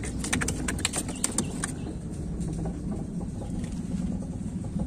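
A boat's motor running steadily at low speed, with a quick run of sharp clicks and knocks in the first second and a half.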